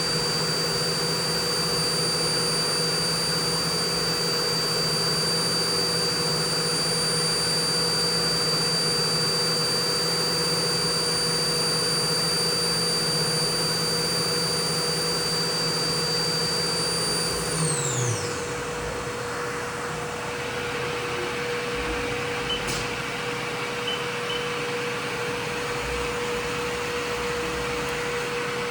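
Haas CNC mill's spindle running at a steady high whine while cutting a mother-of-pearl inlay, then spinning down about two thirds of the way through, its whine falling away as the cut ends. A steady hum and rushing noise carry on after the spindle stops.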